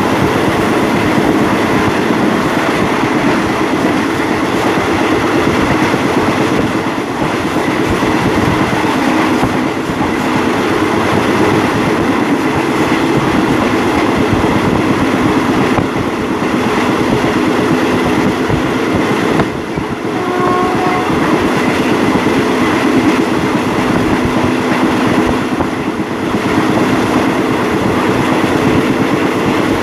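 Diesel-hauled passenger train running on the line, a steady rumble and clatter of wheels on rails, with a short tone about twenty seconds in.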